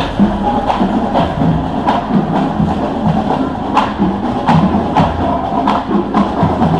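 Parade music carried by percussion: sharp clicks on a recurring beat over low tones.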